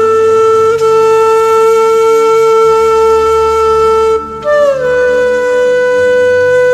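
Background music: a flute-like wind instrument holds one long note over a soft low drone. It breaks off about four seconds in, then comes back on a higher note that slides down and is held.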